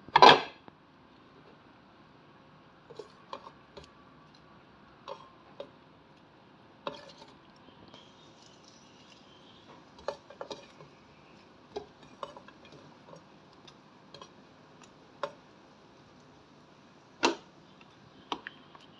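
Scattered clinks and knocks of a kitchen utensil against a stainless steel cooking pot, with a loud knock right at the start and another near the end.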